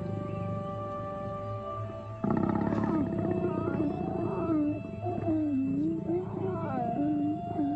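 African lions growling and snarling while mating, breaking in suddenly about two seconds in, with wavering, rising-and-falling growls. Soft background music with held notes runs underneath.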